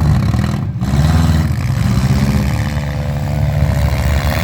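Demolition derby car engines running loudly and revving in swells.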